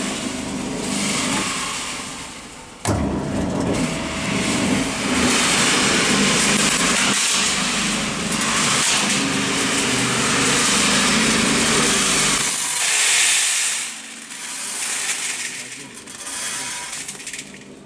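Electric drum roaster unloading: its motor hums while roasted grain pours out of the drum and slides down a stainless-steel chute into a steel bowl as a steady rush of kernels. It starts with a sudden clunk about three seconds in and tails off after about fourteen seconds.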